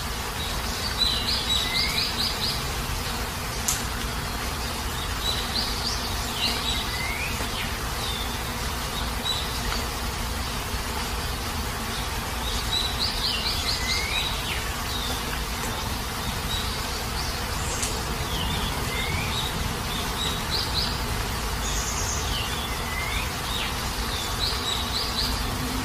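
Steady heavy rain falling, with a bird calling repeatedly through it, each call a quick run of high notes with a sliding note, coming every few seconds.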